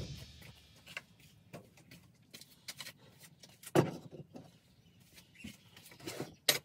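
Scattered knocks and clatter of tools and gear being handled and moved around a workshop, with two louder knocks, one about four seconds in and one just before the end.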